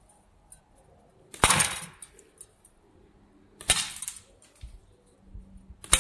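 8 mm steel slingshot balls striking an enamelled steel bowl held in a small vise: three sharp hits about two seconds apart, each ringing briefly. The balls are punching holes through the enamel.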